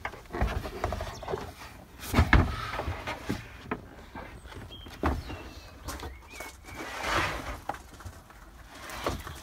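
Knocks and clunks of a campervan's freestanding wooden kitchen unit being lifted out of its floor runners and carried out, with a loud bump about two seconds in.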